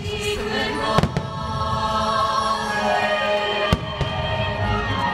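Aerial fireworks bursting with sharp bangs, two in quick succession about a second in and another a little later, over the show's music playing through loudspeakers. A deep low rumble builds near the end.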